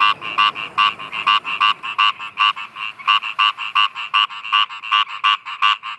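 A frog croaking in a quick, even series of short calls, about three a second.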